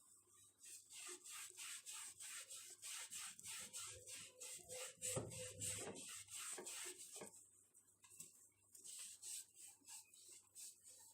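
Rapid back-and-forth rubbing strokes, about three a second, of the inside of a microwave oven being wiped clean of steam-softened grease. The strokes are steady for about seven seconds, then come fainter and more spaced out.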